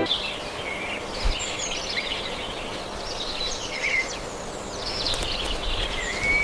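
Wild birds chirping and singing, with many short high calls and whistles over a steady outdoor background hiss. A longer whistled note comes near the end.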